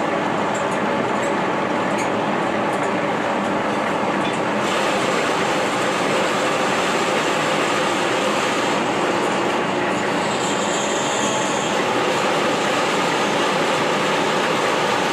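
Metal lathe running under power while cutting a thread, a steady mechanical rumble and hiss. Light ticking in the first few seconds stops about four and a half seconds in, and a brief high-pitched sound comes in around ten seconds in.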